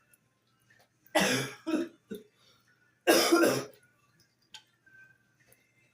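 A person coughing in two short bouts, about a second in and again about three seconds in.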